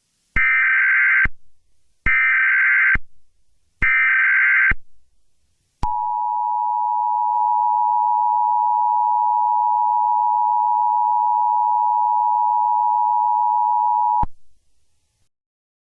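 Emergency Alert System SAME header: three short bursts of buzzing digital data tones, each under a second and separated by short gaps. A steady two-tone attention signal follows, held for about eight seconds before cutting off sharply.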